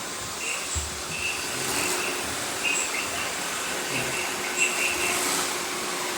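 Several robot vacuums running at once: a steady whir of suction motors and brushes, with short high chirps dotted through it and a few light bumps.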